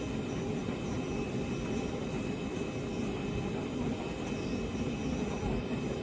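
Boeing 757 jet engine noise heard from inside the passenger cabin, a steady deep rumble with faint, even high tones on top.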